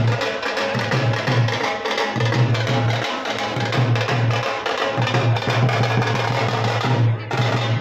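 Loud, fast drumming with music, the beat driving steadily, with a brief break in the sound about seven seconds in.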